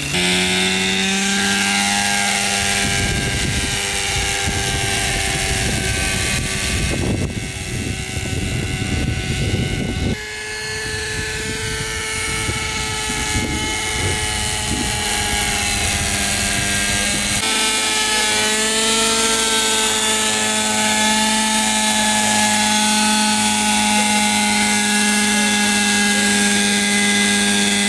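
Nitro-engine RC helicopter running with a steady high-pitched whine from its engine and rotor. The pitch rises at the start, the tone shifts abruptly twice, and the pitch sinks a little near the end.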